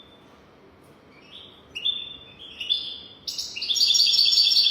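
European goldfinch singing: after a brief pause, twittering phrases build into a loud, rapid run of repeated notes near the end.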